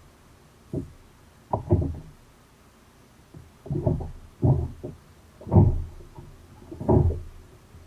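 A run of irregular hollow thumps and knocks on a fishing kayak, about eight in a few seconds, some in quick pairs.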